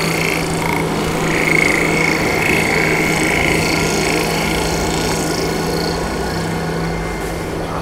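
Dark ambient drone: a steady machine-like hum with one constant low tone under dense rumbling noise, with a higher whistling tone that comes and goes through the first half.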